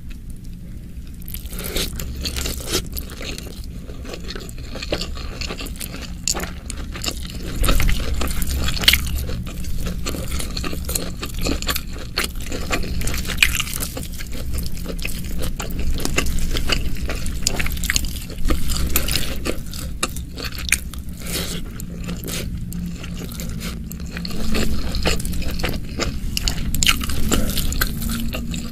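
Bare fingers squishing and scraping through rice and oily, saucy chilli-stir-fried beef, with many small wet clicks and crackles over a steady low hum.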